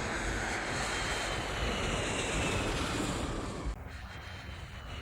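Jet airliner engines running, a steady dense rush with a faint high whine that slowly falls in pitch; about three and a half seconds in the sound drops abruptly quieter and duller.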